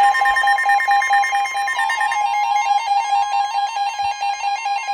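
Emergency Alert System alert tones on a weather radio, signalling an incoming severe thunderstorm warning: a loud, steady two-note electronic tone, joined about two seconds in by a rapid stepping warble of beeps.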